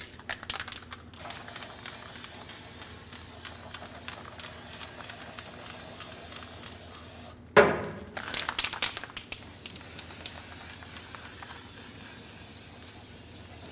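Aerosol can of weld-through primer spraying in two long, steady hisses, with clicking just before the first and a short loud clatter between them.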